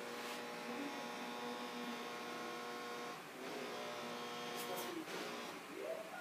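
A steady machine-like hum with several pitched overtones, breaking off for a moment about three seconds in and then resuming.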